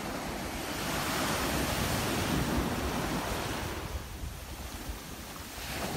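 Surf breaking and washing up a sandy beach, swelling about a second in and ebbing away after about four seconds before the next wave comes in, with wind buffeting the microphone.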